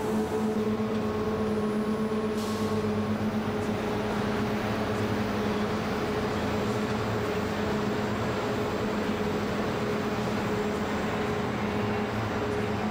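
Gazzani GE-TS-4 shot blasting machine running while aluminium profiles go through on its roller conveyor: a steady machine hum over an even rushing hiss.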